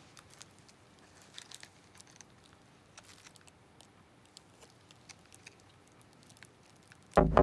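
Faint crinkling and small scattered ticks of a cigarette pack's cellophane wrapper and foil being handled by fingers. Near the end, loud electronic music cuts in suddenly with an even beat.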